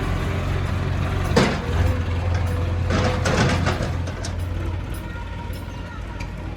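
Heavy machinery's diesel engine running steadily, with a few short knocks and rattles about one and a half and three seconds in.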